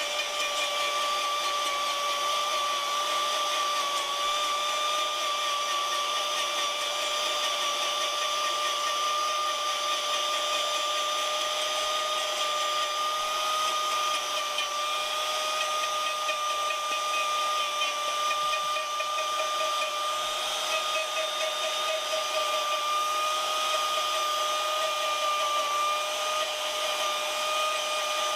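Electric power-carving tool with a rotary gouge, its motor running at a steady speed with a constant high whine throughout.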